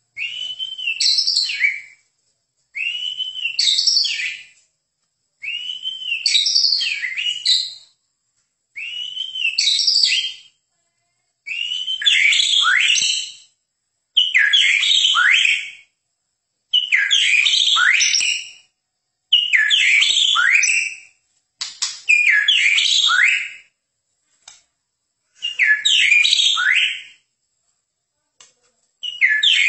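White-rumped shama (Medan murai batu) singing in phrases about two seconds long, one after another with short silences between. The early phrases are arching whistles and the later ones quick downward-sweeping notes.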